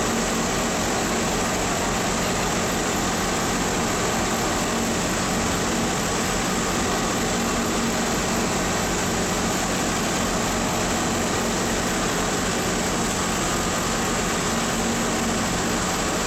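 Interior running noise of an NS-74 rubber-tyred metro car moving through a tunnel: a constant rush of tyre and tunnel noise with a steady low hum underneath.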